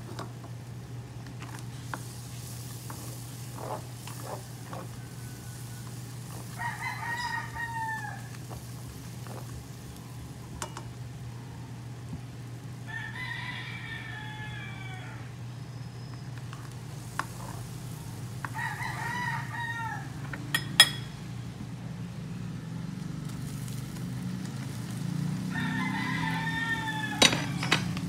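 A rooster crowing four times, each crow about a second long, over a steady low hum. A couple of sharp taps sound in the second half.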